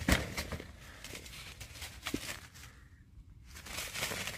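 Faint scuffing and rustling of dry leaves and dirt as a serval paws and pounces, with one sharp knock at the very start.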